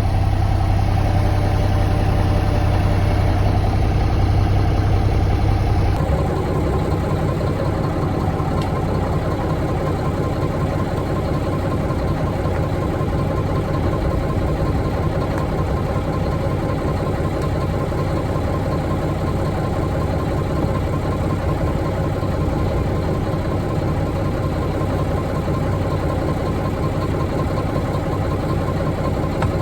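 Mack CH613 truck's diesel engine idling steadily, a low, even running sound that changes abruptly about six seconds in.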